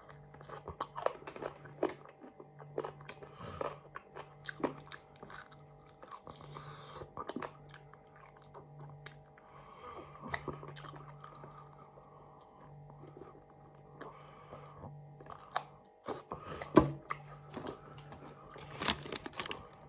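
Close chewing and biting into crisp battered fried fish: many short crunches, the loudest a few seconds before the end, over a steady faint hum.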